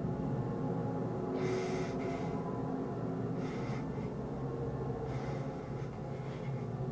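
A man gagged with tape breathing heavily through his nose, about four hissing breaths spaced a second or two apart, over a steady low drone.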